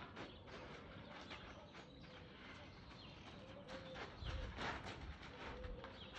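A bird repeats a short, low note every second or so, over faint outdoor ambience with scattered soft knocks.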